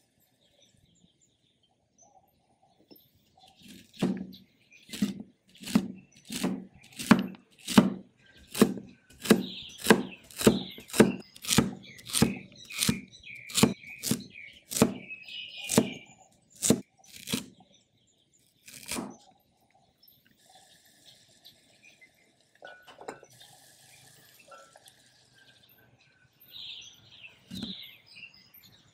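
A wide-bladed cleaver chopping celery stalks on a wooden cutting board: a steady run of sharp chops, about one and a half a second, for over ten seconds, then a pause and a couple of slices near the end. Birds chirp in the background.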